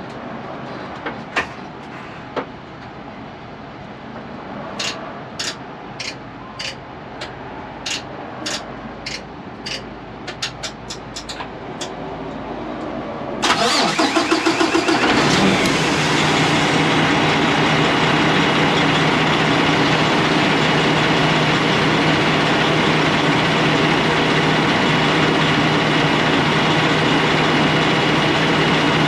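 A 2022 Kenworth T680's diesel engine cranks and starts about halfway through, then settles into a steady idle. Before the start, a string of sharp clicks comes faster and faster over a low hum.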